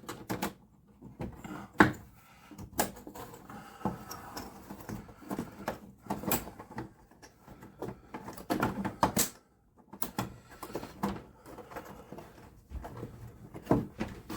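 Plastic back cover of a computer monitor being lifted off and handled: irregular clicks, knocks and scraping of plastic.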